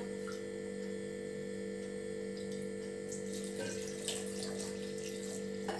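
Milk being poured into a stainless-steel mixer-grinder jar: a faint, liquid pouring sound over a steady low electrical hum.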